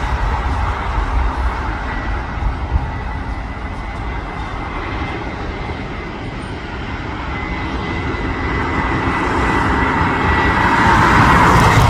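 Airliner engines running, a broad rumble with a thin steady high whine, growing louder over the second half.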